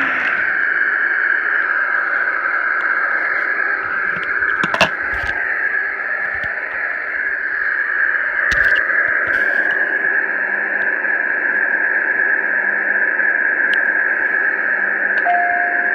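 Steady running noise inside a Metro-North commuter train car, with a couple of sharp clicks or knocks along the way.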